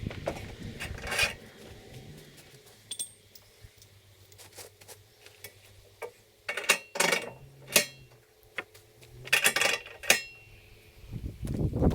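A series of sharp metallic clinks and clanks, loudest in a cluster of several strikes from about the middle to near the end, over a faint low steady hum; typical of metal parts of a portable bandsaw mill being handled and adjusted between cuts. Near the very end, loud motor noise starts.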